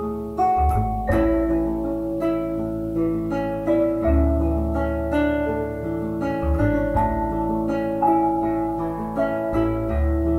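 Instrumental music: a slow run of plucked notes over deep held bass notes.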